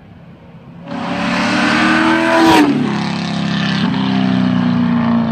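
A 2004 Corvette C5's straight-piped V8, on Kooks headers with no mufflers, accelerating hard past. The exhaust note comes in about a second in and climbs, is loudest at about two and a half seconds in where its pitch drops sharply as the car goes by, then holds steady as it pulls away.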